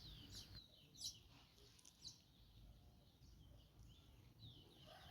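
Near silence with faint, scattered bird chirps, mostly in the first two seconds.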